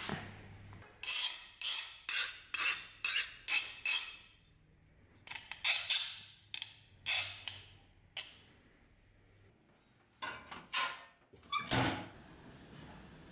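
Hand file rasping on the steel of a knife blade, in runs of quick strokes with pauses between. A single knock near the end.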